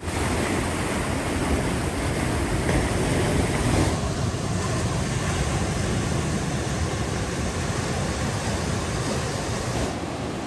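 Surf washing up onto a sandy beach: a steady rush of waves that shifts a little about four seconds in and again near the end.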